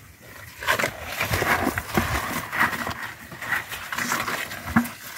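Aged cattle manure being tipped from a bucket and worked around the base of a young tree: a run of rustling, scraping and small knocks of crumbly clods on soil, starting about a second in.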